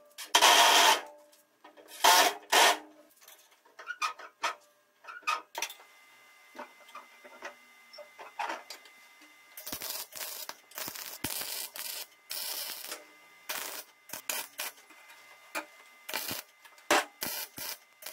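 A few loud bursts near the start, then a wire-feed (MIG) welding arc crackling in a series of short strikes with gaps between them, tack-welding a metal bracket.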